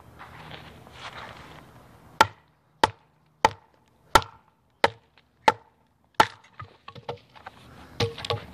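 A TOPS Knives El Chete, a quarter-inch-thick 1095 high-carbon steel chopper, hacking into a log of wood: seven sharp chops about two-thirds of a second apart, starting about two seconds in, then a few lighter knocks near the end.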